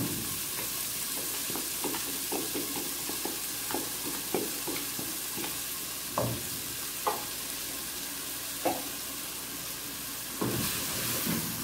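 Chopped vegetables sizzling in olive oil in a metal pan while a wooden spoon stirs them, with many light knocks and scrapes of the spoon against the pan and a few louder knocks about six to nine seconds in. Near the end the sizzle and stirring get louder.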